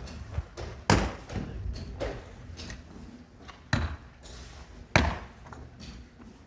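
Irregular sharp knocks and thuds, three loud ones about one, three and three-quarter and five seconds in, with lighter knocks between them.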